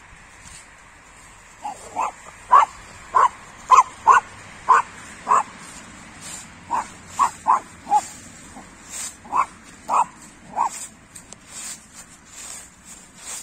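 A dog barking in a series of short, loud barks, about a dozen and a half, which thin out after about ten seconds. Faint rustling of footsteps through dry fallen leaves runs under the later part.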